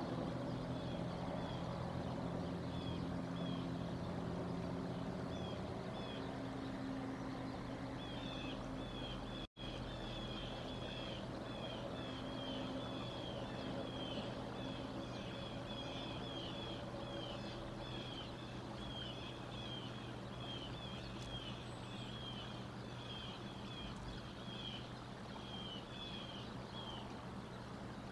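A bird's rapid, repeated high chirps, a long run that thickens about a third of the way in and stops near the end, over a steady low motor hum. The sound cuts out for an instant about a third of the way in.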